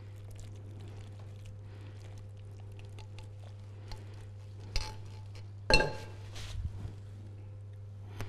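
Cookware being handled while sauce is poured from a pot into a ceramic baking dish. There are a few light clinks, the loudest about six seconds in with a brief ring, over a low steady hum.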